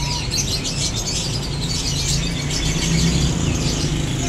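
A cage crowded with young sunbirds chirping together: many quick, high, overlapping chirps without pause, over a steady low hum.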